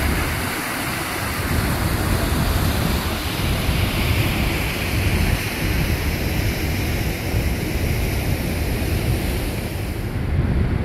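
Steady rush of fast-flowing river water, with wind buffeting the phone's microphone in low, gusty rumbles.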